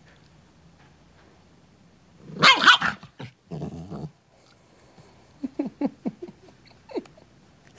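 A small dog gives one loud, sharp bark about two and a half seconds in, followed by a short, low growl, then a few short, quieter sounds near the end. The dog is barking at nothing visible, which the owner takes for hallucinations.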